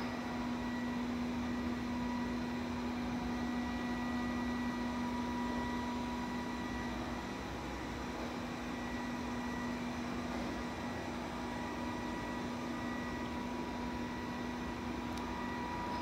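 Robot vacuum cleaner running as it drives across a tiled floor: a steady motor whir with a constant hum.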